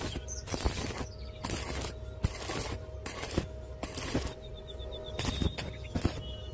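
Electric arc welding: the arc crackling and sputtering as the bead fills a gap, in short bursts that break off and restart about every half second, with a faint steady hum underneath.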